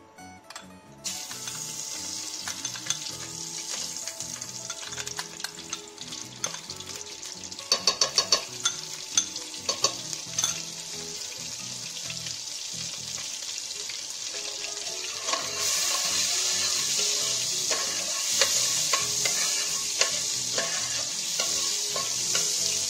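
Butter sizzling as it melts in hot oil in a stainless steel pot; the sizzle starts about a second in and grows louder about two-thirds of the way through. A metal spoon clinks against the pot several times around the middle.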